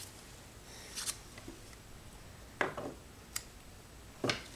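Small paper hinge pieces and wooden blocks handled with a nitrile-gloved hand on a cutting mat: a handful of short rustles and light clicks about a second apart, the loudest near the end.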